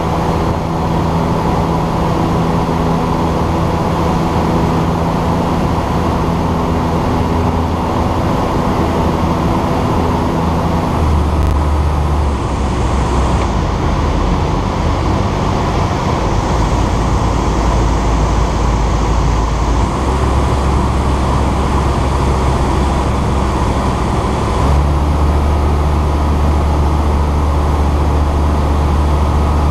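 Ikarus C42 microlight's engine and propeller droning steadily in cruise, heard from the cockpit with wind rush over the airframe. The engine note changes about a third of the way in and again near the end, as the power is adjusted.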